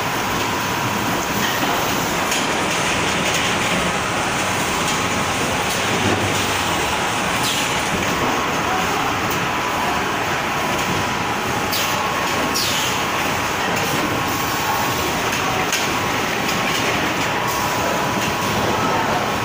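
Robotic case packer for bagged snacks running: a steady mechanical din of conveyors and machinery with a faint steady whine, broken by a few short high swishes.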